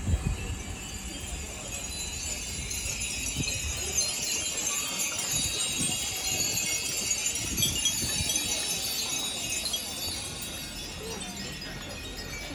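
Many Japanese furin wind chimes ringing together in the breeze, a dense shimmer of overlapping high notes that swells in the middle.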